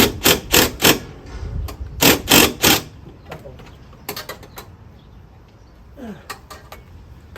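Ratchet wrench clicking in short runs of a few clicks each, run down on a 10 mm nut that holds an intake tube to its bushing.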